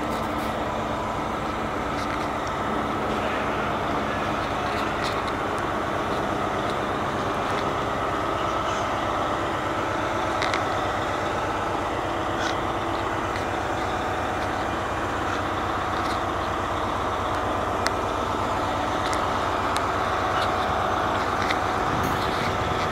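British Rail Class 60 diesel locomotive 60074 with its engine running steadily, with a few short clicks over it.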